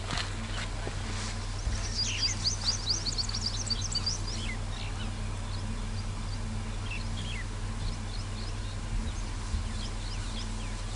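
Wild birds calling: a quick run of short, high, falling chirps about two seconds in that lasts about two seconds, then a few scattered chirps later on, over a steady low hum.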